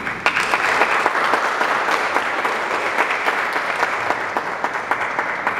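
Audience applauding, a dense patter of many hands clapping that starts suddenly and begins to fade near the end.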